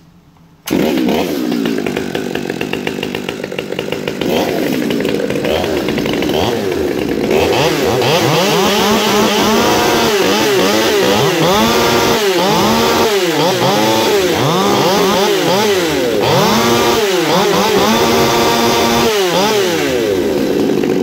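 Two Stihl MS 200T two-stroke top-handle chainsaws, ported and decked with custom exhausts, start running under a second in. From about a third of the way through they are revved up and down over and over, their pitches rising and falling and crossing.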